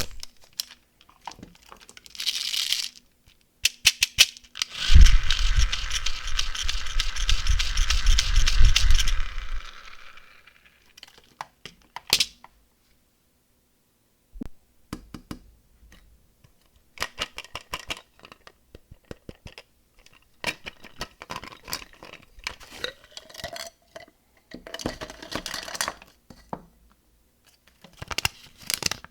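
Candy wrappers and packaging being torn open and crinkled, with small clicks, taps and rattles of candies being handled. A long, loud stretch of rustling and tearing comes about five seconds in and lasts some five seconds; after it come scattered clicks and shorter, quieter crinkles.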